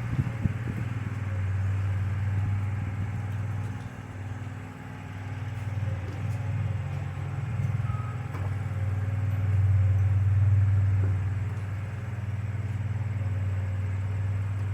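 Engine of a compact stand-on lawn mower running, a steady low hum that fades a little about four seconds in and swells again near the middle as the mower moves.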